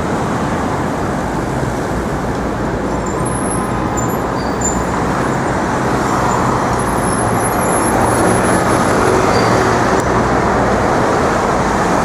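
Steady road traffic noise of passing vehicles on a busy city street, rising a little past the middle.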